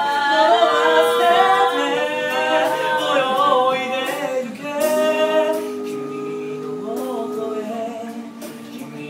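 Mixed men's and women's voices singing a cappella in harmony, held low notes under a moving upper line. The singing grows quieter from about halfway through.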